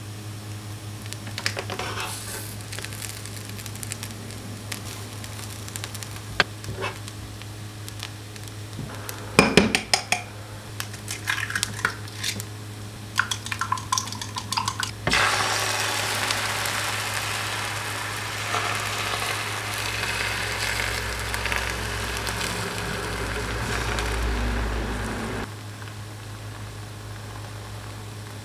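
Utensils clinking and knocking against a pan and dishes, then food sizzling in a hot frying pan. The sizzling starts suddenly about halfway through, lasts about ten seconds and cuts off suddenly.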